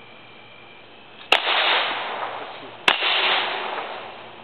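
Two pistol shots about a second and a half apart, each followed by a long rolling echo that dies away slowly.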